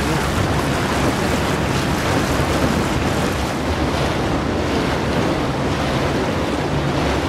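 A tour boat's motor running steadily under way, with water rushing along the hull and wind on the microphone.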